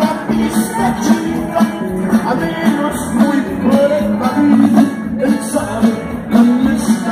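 Live norteño band music played over an arena's sound system, heard from the crowd in the stands.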